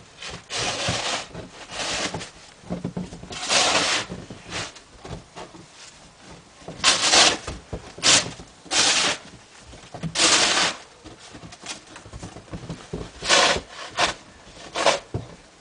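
Snow shovel scraping through snow across a wooden deck, in repeated strokes of about half a second to a second each, with pauses between.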